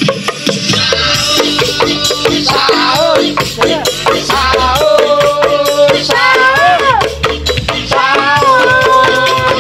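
An upbeat song played loud over a sound system, with a fast rattling percussion beat under a sliding melody line.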